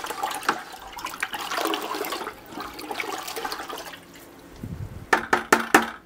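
Water sloshing and swirling in a plastic bucket as a descaler solution is stirred with a plastic scoop to dissolve it. Near the end come a few quick, sharp knocks.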